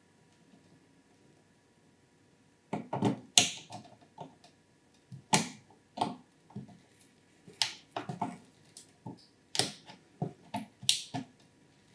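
Irregular clicks, knocks and short scrapes of hands handling computer parts and cables while a power supply is fitted into a PC case, starting about three seconds in.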